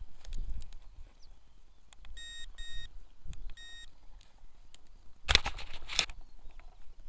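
Three short electronic beeps at one pitch, two close together and a third about a second later. Near the end comes a loud rustle and knocks as a hand handles the camera right at the lens.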